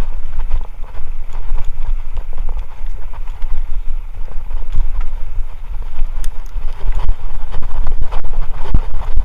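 Mountain bike riding over a rough trail: a heavy rumble of wind and tyres with frequent irregular knocks and rattles from the bike on the bumps.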